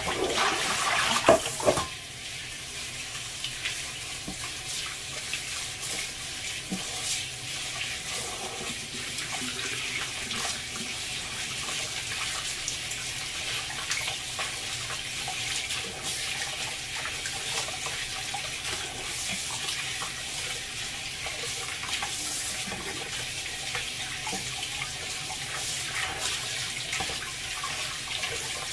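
Kitchen tap running steadily, its stream splashing over choy sum leaves and into a stainless steel bowl of water as the greens are rinsed by hand. Louder splashing with a couple of sharp knocks in the first two seconds, then an even flow.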